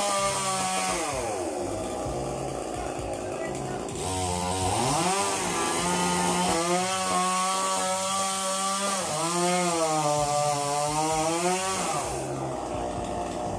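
Chainsaw cutting a coconut palm trunk, revving up and down. The engine winds down in the first couple of seconds, climbs back to full speed about four seconds in and holds there with one short dip, then drops off near the end.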